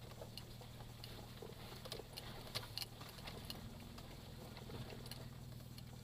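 A 4x4's engine idling low and steady, with scattered light clicks and ticks over it.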